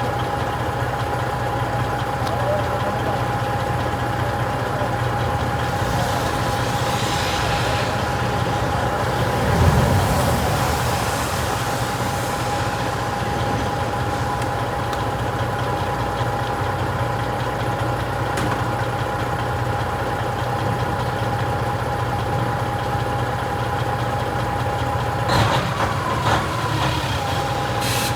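Delivery truck's engine running steadily as the truck is manoeuvred in reverse into a tight spot, heard from inside the cab. A hiss rises and fades about a third of the way through, and a few sharp clicks come near the end.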